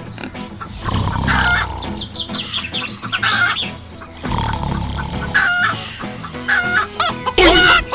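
Chickens clucking, with a rooster crowing, in a run of short calls.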